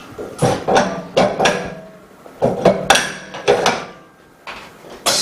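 A series of hard knocks and clatter as the laminated phone screen and its mold are handled and loaded into a bubble remover machine. Just before the end, the machine starts with a sudden steady rushing hum.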